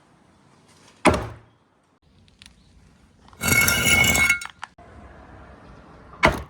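Marbles on a four-tier slope marble run: a sharp clack about a second in, a light click, then about a second of a marble rolling with a ringing tone, and another clack near the end.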